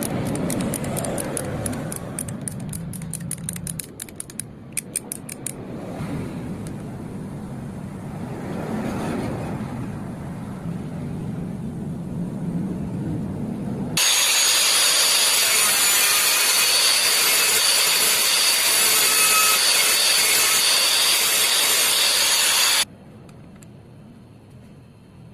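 A ratchet clicks rapidly in bolt-thread repair work. Further on, a loud, steady rushing noise from a workshop tool runs for about nine seconds and cuts off suddenly.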